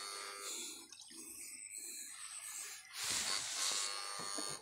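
Water sloshing and splashing around a person wading in a shallow stream while working electrofishing poles through the water. A louder rush of splashing comes about three seconds in.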